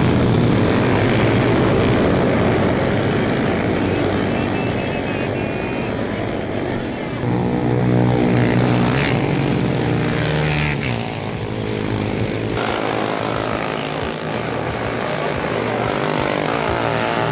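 Motorcycle engines running and revving as racing bikes ride past. Their engine notes rise and fall around the middle.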